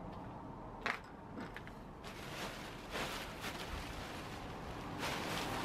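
A plastic sheet rustling and crinkling as it is lifted and bundled up off outdoor pipework, with one sharp click about a second in.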